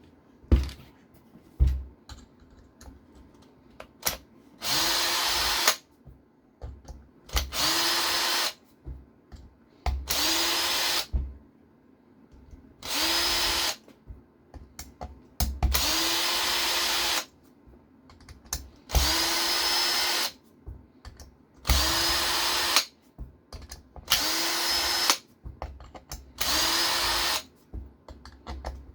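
Cordless power driver running in short spurts of about a second, nine times, each spinning up quickly to a steady whine, as screws are backed out of an RC car chassis during teardown. Small clicks and knocks of handled parts and screws fall between the spurts.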